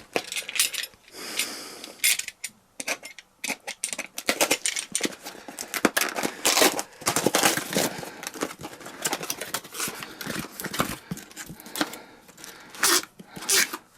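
A small cardboard box being opened by hand and its contents taken out: irregular scrapes, taps and rustles of card and packaging.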